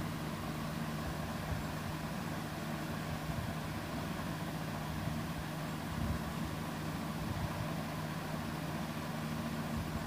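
A steady low hum over an even background hiss, with no speech.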